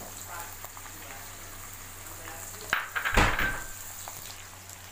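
Chopped vegetables sizzling in hot oil in a kadai as they are stirred with a spatula. About three seconds in, a bowl of chopped cabbage is tipped into the pan with a brief clatter and thump, and a short ring of metal.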